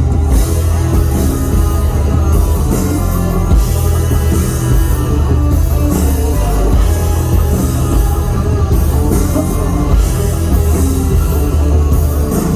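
Live rock band playing an instrumental passage: electric guitar, bass and drum kit, loud with a steady beat and a heavy bass.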